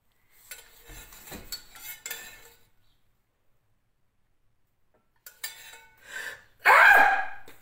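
Metal spoon scraping and clinking against an enamel saucepan as reduced red-wine syrup is spooned out over poached pears. The sound comes in two spells with a silent pause between them, and the loudest scrape comes near the end.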